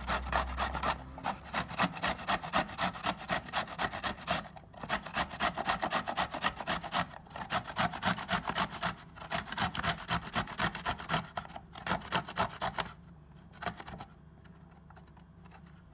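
A carrot being grated by hand on a flat stainless-steel grater: quick repeated scraping strokes, several a second, with a few short breaks. The strokes stop about thirteen seconds in, and one last stroke follows about a second later.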